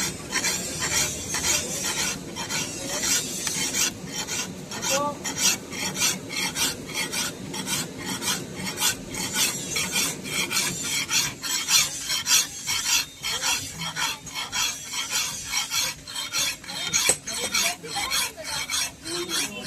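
Steel knife blade being sharpened by hand: rapid, evenly repeated rasping strokes, about three a second.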